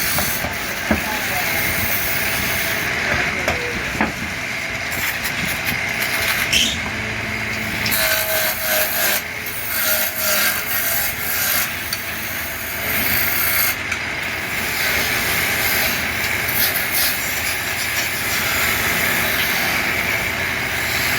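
Wood being cut with a turning tool on a lathe: a steady scraping, rasping noise with short pitched squeaks about eight to ten seconds in.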